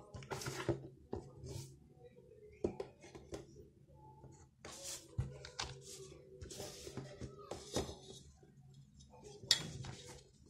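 Hands handling a cardboard box and a small faux-leather notebook: scattered taps, scrapes and brief rustles.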